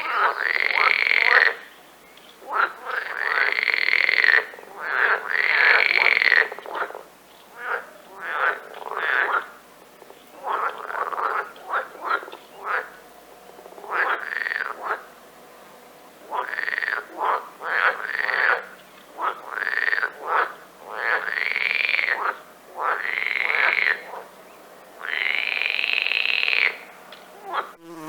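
Frog calling over and over: a string of loud croaks, each under a second or so long and bending up and back down in pitch, with short gaps between them.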